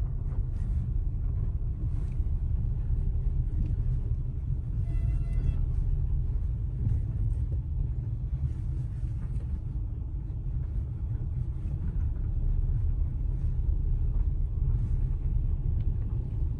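Car interior rumble while driving over a rough, unpaved dirt road: a steady, loud low rumble of tyres and road, with occasional faint knocks as the car jolts over bumps.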